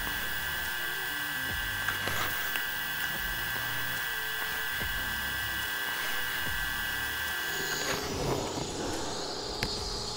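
TIG welding arc buzzing and hissing steadily while filler rod is fed into a seam on a cast part. The arc stops about eight seconds in, and a fainter, different steady hum carries on.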